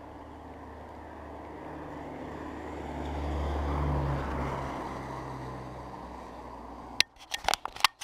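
A vehicle passing on the road over the bridge: a low rumble that swells to its loudest about halfway and then fades. Near the end comes a quick run of sharp knocks and scrapes as a hand fumbles at the camera.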